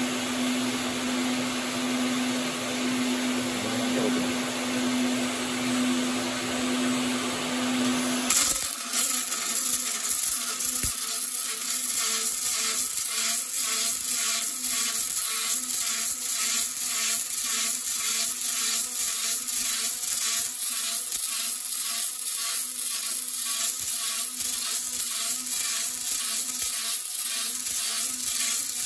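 Steady hum of a welding fume extractor with a constant low tone. About eight seconds in it gives way to a robotic MIG (GMAW) arc in RapidArc pulsed mode, welding with a weave: a steady crackling buzz with an even, fast pulsing and spatter.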